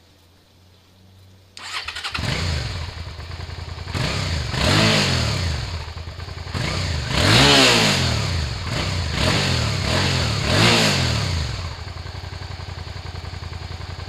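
Suzuki SV650S's 90-degree V-twin on its stock exhaust starting up about a second and a half in and idling, then revved four times, each rev rising and falling in pitch, before settling back to idle.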